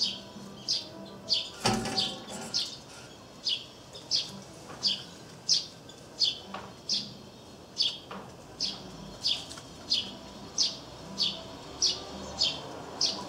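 Eurasian tree sparrow chirping over and over, short high chirps at about two a second. A single sharp knock about two seconds in.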